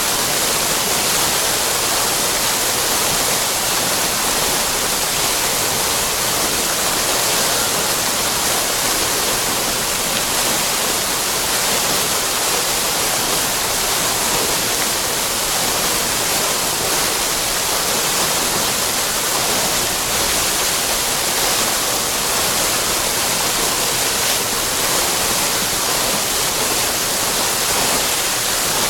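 Water fountain splashing in a steady, even rush of falling water, bright and hissy.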